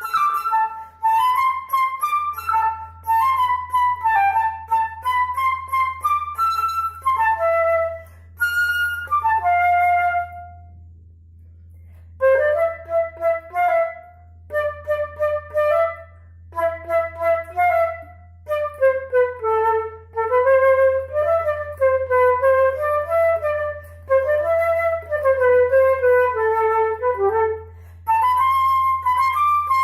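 Background music: a solo flute playing a slow melody in phrases with short pauses, over a faint steady low hum.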